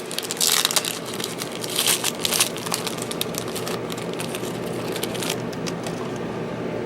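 Crinkling and rustling of trading card packs and cards being handled, in several short bursts that are densest in the first two and a half seconds, over a steady low hum.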